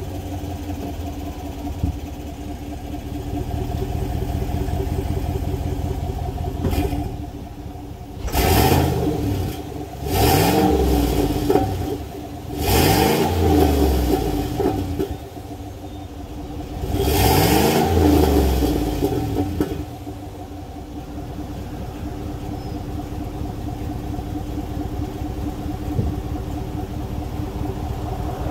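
2021 GMC Sierra's 5.3-litre V8 idling through its stock exhaust. From about eight seconds in it is revved four times, each rev rising and falling in pitch, then it settles back to a steady idle.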